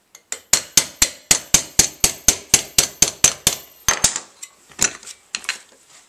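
Small hammer tapping a steel drift to drive the stainless pad pins out of a Suzuki Bandit's alloy rear brake caliper: quick, light, even strikes, about four a second for nearly four seconds. A few scattered fainter clinks follow.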